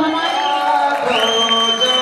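Background music with long held notes; a high held note comes in about a second in.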